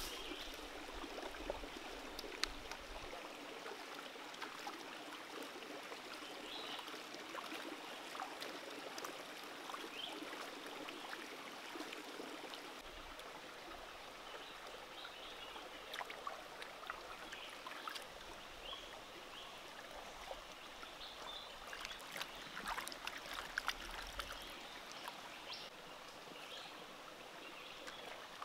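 Shallow rocky stream babbling steadily, with scattered small clicks and splashes.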